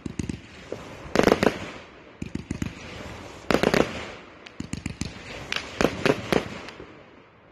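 Fireworks going off: two loud bangs of aerial shells bursting, about a second in and again about three and a half seconds in, with quick runs of sharp crackling pops between and after them.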